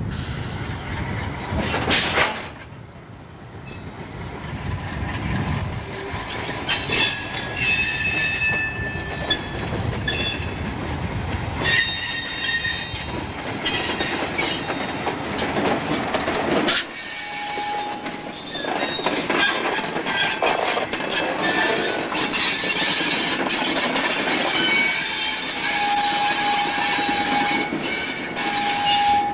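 A freight train hauled by a Mohawk, Adirondack & Northern diesel locomotive rolls slowly past, its wheels squealing in high steady tones with rail-joint clicks. There is a sharp bang about two seconds in.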